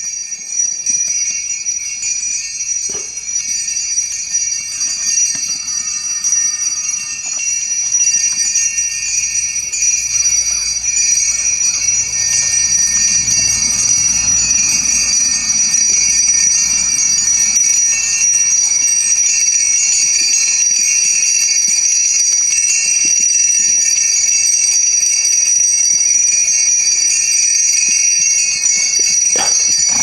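Sleigh bells jingling steadily and continuously.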